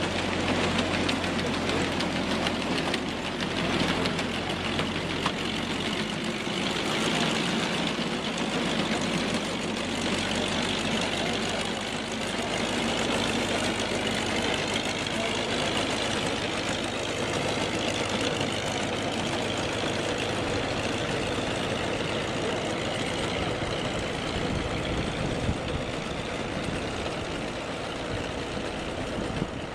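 A heavy vehicle's engine running steadily, with a change in its low hum about six seconds in.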